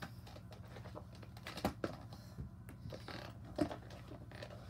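Kryptonics skateboard being popped for ollie attempts on carpet: two dull knocks, about a second and a half in and again near the end, with lighter taps and scuffs of feet on the deck between.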